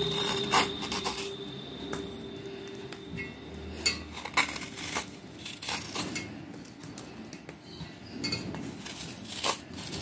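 A small knife scraping the water-softened surface off a red clay shard, in irregular scratchy strokes with sharp clicks of the blade, loudest about half a second and four and a half seconds in.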